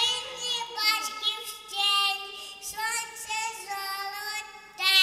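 A little girl singing into a handheld microphone: short sung phrases with held, gliding notes, the loudest phrase starting near the end.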